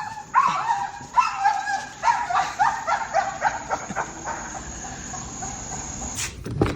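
A dog yipping, a run of short, high calls in quick succession that fade out after about four seconds. A short clatter comes near the end.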